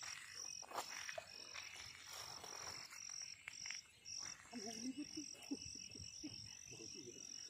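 Faint, high-pitched rhythmic chirping of insects, pulsing a little over twice a second, with some low wavering calls in the second half.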